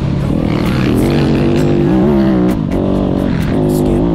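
Dirt bike engine running under changing throttle on a rough dirt track, its pitch rising and falling several times, with short knocks from the bumpy ride.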